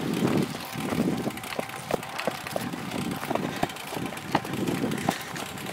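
A BMX bike being wheeled along a dirt path on foot, with irregular light clicks and rattles from the bike and footsteps. Wind buffets the microphone in uneven low pulses.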